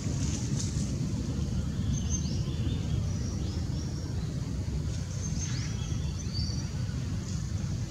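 Steady low outdoor rumble, with short high-pitched chirps scattered through it, mostly between about two and six seconds in.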